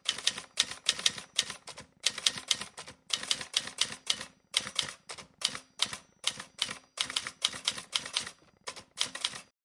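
Typing: quick, irregular key clicks in short runs with brief pauses between them, stopping just before the end.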